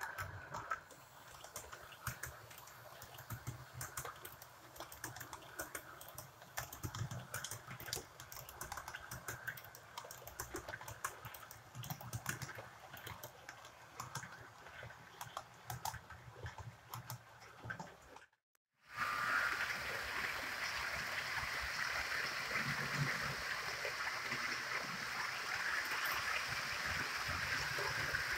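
HO-scale model train coaches rolling along sectional track, a low running hum with many quick irregular clicks from the wheels on the rails. After a short break about two-thirds of the way through, a second model train runs past with a louder, steady rushing rolling noise.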